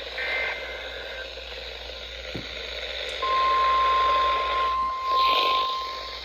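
Emergency Alert System activation on weather radio: the last SAME header data burst, a rapid two-tone digital screech, ends about a second in. After a short gap the steady single-pitch NOAA Weather Radio warning alarm tone starts about three seconds in, announcing a severe thunderstorm warning.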